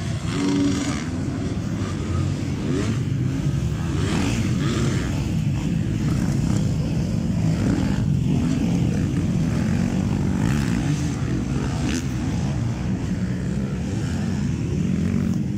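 Off-road racing engines of motocross machines running continuously, a steady drone with engines revving up and down.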